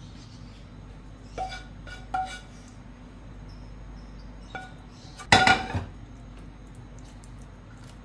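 Wooden spoon knocking and scraping against a bowl while scooping meat sauce: a few light ringing clinks, then a louder clatter about five seconds in.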